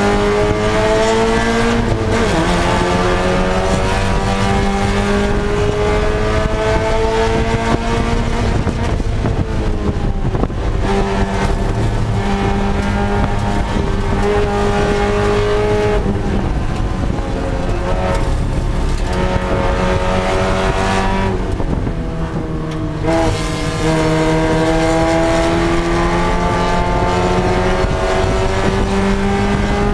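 Mazda Miata race car's four-cylinder engine heard from inside the cockpit at racing speed, its note repeatedly climbing under throttle and then dropping back. The drops come about two seconds in, near ten seconds, at sixteen seconds, and in a brief quieter dip a little past twenty seconds. A steady rush of road and wind noise runs under it.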